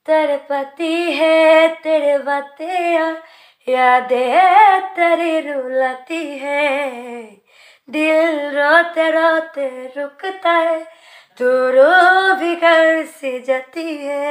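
A woman singing unaccompanied, a slow melody in four phrases with short breaks between them.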